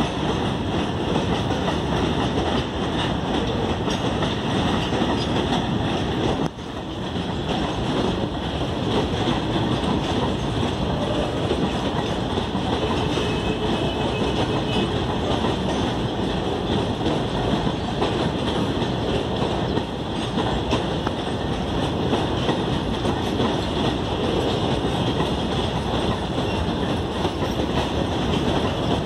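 A long freight train of covered wagons rolling past on the rails, a steady, even noise of wheels on track, with one brief dip about six and a half seconds in.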